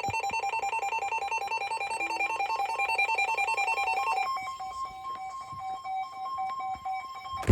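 Electronic emergency alert tones from a weather radio / EAS broadcast. A rapidly pulsing, warbling tone runs for about four seconds, then gives way to a steady tone near 1 kHz with a second, pulsing lower tone, ending in a sharp click.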